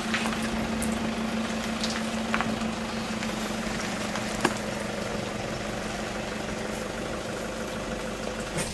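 Tow vehicle's engine idling with a steady hum, with a few faint ticks.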